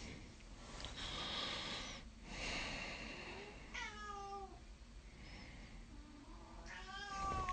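A cat meowing twice, faintly, about four seconds in and again near the end. A soft rushing noise comes before the first meow.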